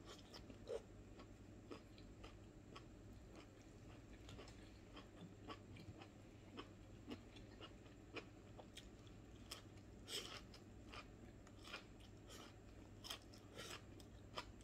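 Faint chewing and crunching of food eaten by hand, with short irregular mouth clicks and smacks a few times a second.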